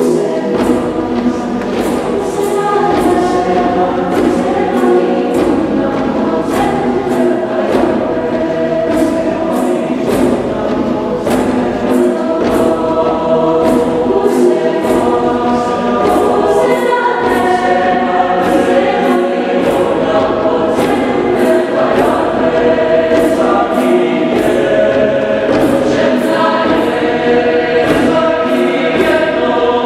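Mixed choir of male and female voices singing together in several parts, with sharp high ticks recurring on a steady pulse.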